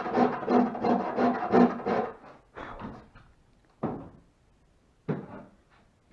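Flat hand file rasping across the end of a wooden trim piece, quick strokes about three a second for two seconds, then three slower single strokes.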